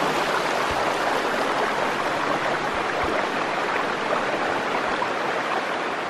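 Shallow mountain stream rushing over stones: a steady, unbroken sound of running water.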